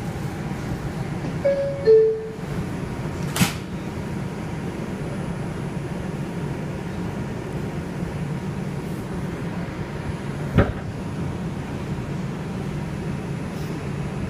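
R142 subway car's door chime, a falling two-note ding-dong about two seconds in, then a sharp knock as the doors shut. After that comes the steady low rumble of the train running, heard inside the car, with one more sharp knock about ten seconds in.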